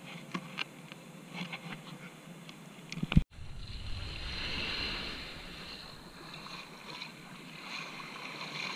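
Sea surf washing up, a hazy swell of water noise that rises and eases off. It comes after a few faint clicks and a sharp click with a brief dropout about three seconds in, where the recording cuts.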